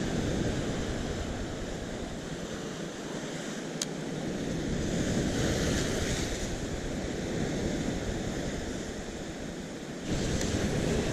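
Pacific surf breaking and washing over a rocky shoreline, swelling about halfway through. Wind rumbles on the microphone, stronger near the end, and there is a single sharp click about four seconds in.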